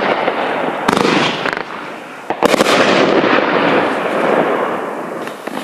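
Fireworks cake firing: sharp shot reports about a second in and again about two and a half seconds in, over a dense crackling that fades away toward the end.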